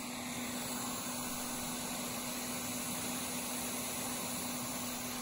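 Quick 861DW hot air rework station running at an airflow setting of 120, its blower making a steady hiss of air through the nozzle with a steady low hum underneath.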